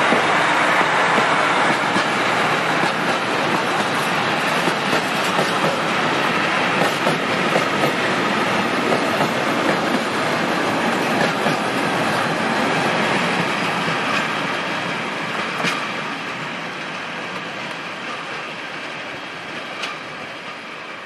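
Freight train of tank wagons rolling past on the rails, the wheels clattering over the rail joints with scattered clicks. It fades steadily as the train draws away.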